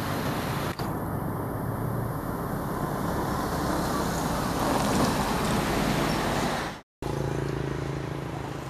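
Steady outdoor background noise with a low hum, broken by a brief dropout about seven seconds in, where the footage is cut and the noise resumes slightly changed.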